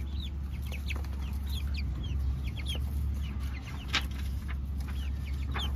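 Young hens clucking and cheeping as they peck at greens on the ground: many short, high calls throughout, over a steady low hum, with a few sharp clicks.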